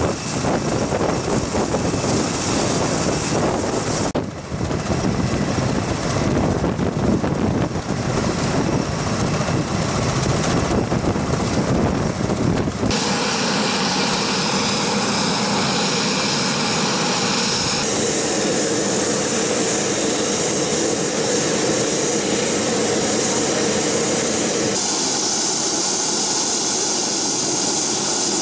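MV-22B Osprey tiltrotor's turboshaft engines and proprotors running steadily on the ground, a loud continuous rush and whine. The sound changes character abruptly several times, from heavy and low to brighter and thinner.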